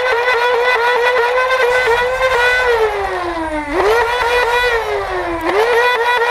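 A siren wailing. Its pitch jumps up quickly, holds with a slight wobble, then slides slowly down, starting over about halfway through and again near the end.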